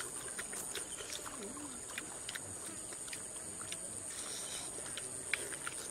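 Close-up eating sounds of boiled chicken: a string of short, wet chewing clicks and lip smacks, over a steady high-pitched drone.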